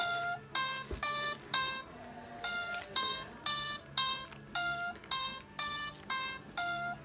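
Handheld electronic toy with light-up coloured buttons beeping as its buttons are pressed: a string of short electronic tones at changing pitches, about two a second.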